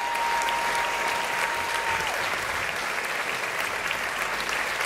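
Audience applauding with steady clapping. A single high held note carries on over the clapping and stops about two seconds in.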